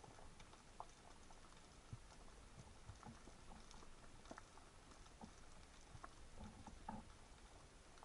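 Near silence underwater: faint, irregular clicks and ticks of the sea's ambient sound, a few a second, over a soft hiss.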